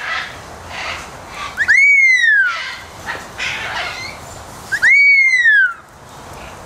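A parrot giving two loud whistles about three seconds apart, each a single clear note that rises and then falls away. Quieter bird chatter fills the gaps between them.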